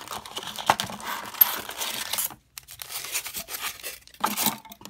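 Plastic trading-card pack wrappers crinkling and rustling in the hands as sealed packs are pulled from the box, with tearing sounds. Dense for about two seconds, then after a short pause come shorter bursts, the last one loud.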